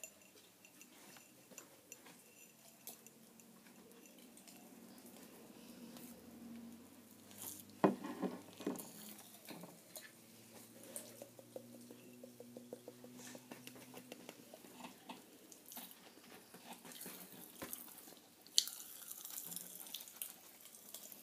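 Popping candy crackling in closed mouths: faint, scattered tiny pops and clicks, with one sharper knock about eight seconds in and a faint low hum for several seconds in the middle.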